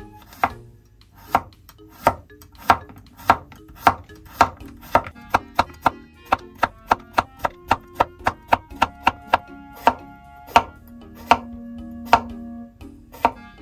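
Chef's knife slicing a cucumber into thin rounds on a wooden cutting board: sharp chops knocking on the board about every half second, quickening to about three a second midway, then slowing toward the end. Soft instrumental music plays underneath.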